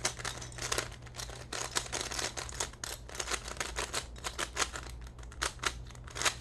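Plastic speed cube being turned quickly by hand, its freshly lubricated layers giving a dense run of rapid clicks and clacks.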